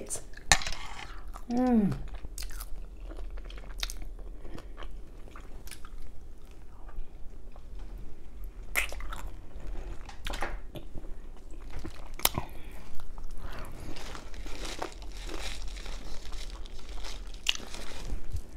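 Close-miked mouth sounds of someone eating chicken: chewing with scattered small wet clicks and crackles, and occasional crunches. There is a brief vocal sound about two seconds in.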